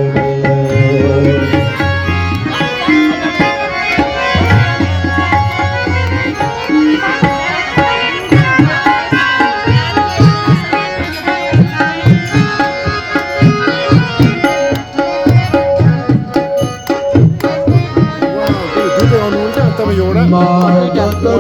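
Devotional bhajan music: tabla playing a steady rhythm under sustained melody notes.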